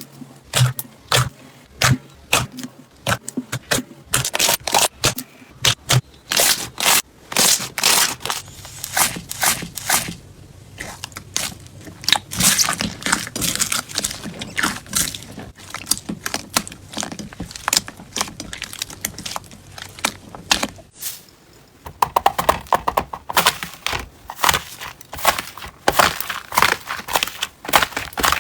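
Slime being pressed, squeezed and poked by hand, making dense irregular crackling, popping and clicking. The sound drops briefly about 21 seconds in, then turns to a denser, finer crackle.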